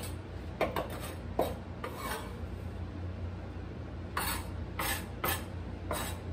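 Chef's knife chopping fresh herbs on a plastic cutting board: irregular knocks of the blade against the board, some in quick runs, over a low steady hum.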